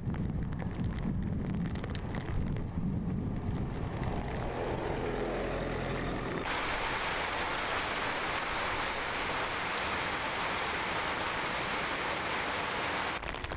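Tropical-storm weather: a low rumble for about the first six seconds, then an abrupt change to a steady, even hiss of heavy rain pouring down.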